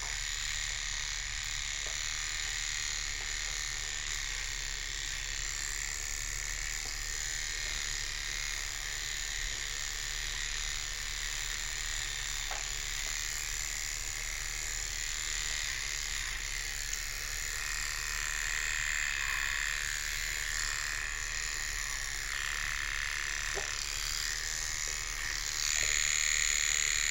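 Small electric grooming tool's motor buzzing steadily on a large dog, getting a little louder near the end.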